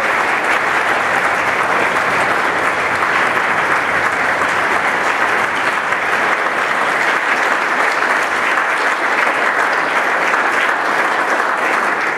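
Concert audience applauding, dense steady clapping from a large crowd.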